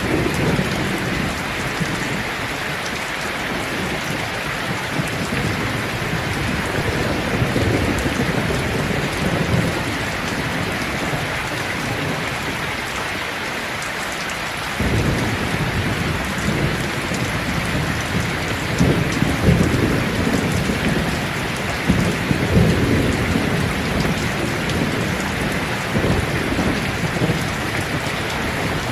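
Steady rain pattering on leaves, a dense even hiss, with deep rumbling swells starting suddenly about halfway through and coming back several times near the end.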